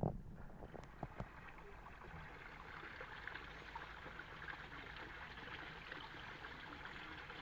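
Faint, steady trickle of water running in a small ditch, with a couple of soft knocks about a second in.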